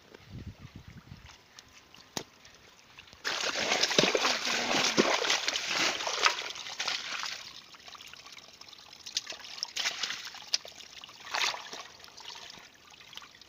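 Shallow muddy water splashing and sloshing as fish are handled in a drained pond. It is quiet for the first three seconds, splashes hard for about four seconds, then comes in shorter spurts.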